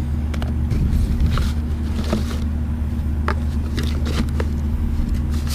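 A steady low mechanical hum runs underneath, with scattered light clicks and rustles as the foam packing and cardboard box of a security camera are handled.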